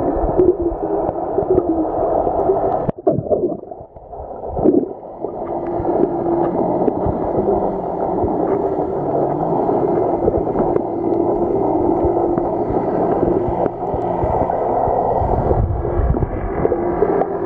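Muffled underwater sound picked up by a submerged camera: gurgling water with a steady low hum. It drops away briefly about three to five seconds in.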